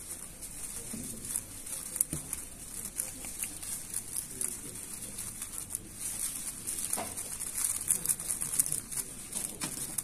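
A 5x5 speed cube being turned quickly by hand: a steady clatter of small plastic clicks as its layers snap round, with a few sharper clicks along the way.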